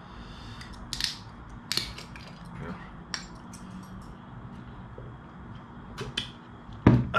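Metal tool prying the crown cap off a glass bottle of carbonated soda: several sharp clicks and a brief fizz, then the soda being drunk from the bottle, with a louder sudden sound near the end.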